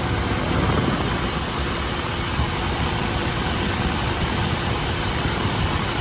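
Car engine idling steadily under the hood with the AC switched on: the compressor clutch is engaged and the compressor is turning off the drive belt, with the condenser fans running.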